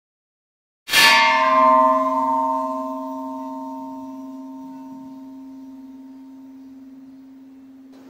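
A large hanging metal temple bell struck once by its clapper about a second in, then ringing on with a deep steady hum and higher overtones that slowly fade away.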